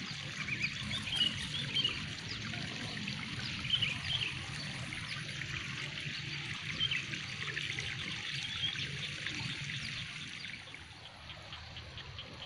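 Water trickling in a flooded rice paddy, a steady wash with short high chirps scattered over it; it grows quieter near the end.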